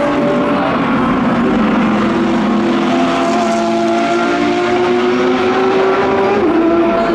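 GT3 race car engines at racing speed, led by a Mercedes-AMG GT3's V8, with several engine notes overlapping. The pitch climbs steadily and drops sharply near the end at an upshift.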